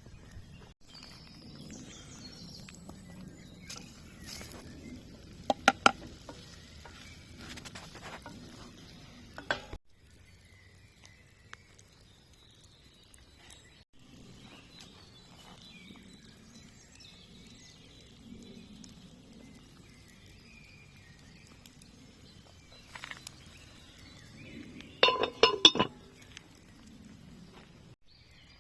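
Metal cookware clinking: a few sharp, ringing clinks about six seconds in, and a louder cluster of clinks near the end, over a quiet background.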